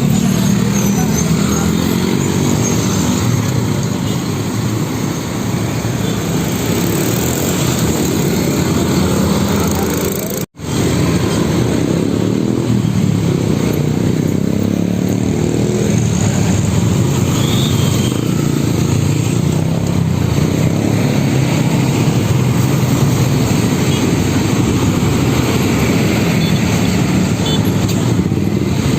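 Steady road-traffic noise led by diesel truck engines running, low and continuous. The sound cuts out for an instant about ten and a half seconds in.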